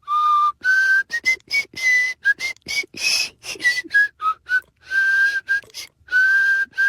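Someone whistling a tune: a run of short notes and a few longer held ones, stepping up and down in pitch with brief gaps between them.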